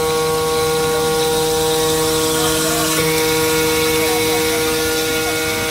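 CNC glass working center's spindle running steadily with a whine of several tones, over the hiss of coolant water spraying onto the glass while the tool works the glass edge. A higher tone joins about halfway through.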